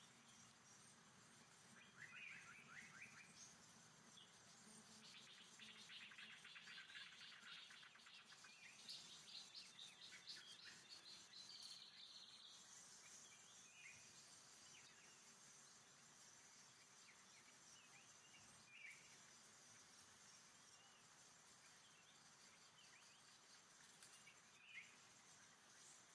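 Faint forest ambience: scattered short bird chirps and a rapid trill in the first half, then a steady high insect hum with a few brief falling calls.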